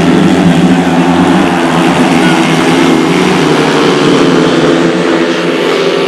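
Speedway motorcycles' single-cylinder racing engines running loud and steady as the bikes race around the track.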